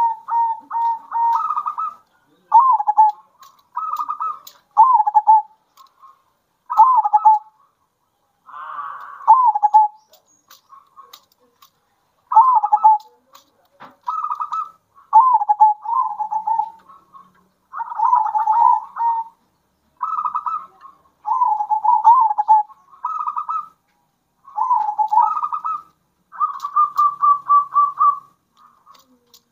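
Zebra doves (perkutut) cooing: a run of short rolling coos, each about a second long with brief gaps between, some broken into a fast rattling trill.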